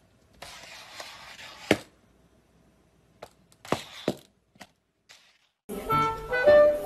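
A few sharp knocks and taps over brief stretches of hiss, then background music comes in about a second before the end.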